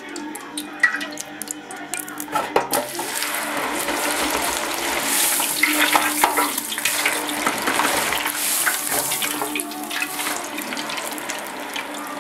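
A few clicks of the electric deep fryer's wire basket being handled, then cubed potatoes lowered into the hot oil: a loud hiss of vigorously bubbling oil that starts about three seconds in, builds, and eases slightly near the end.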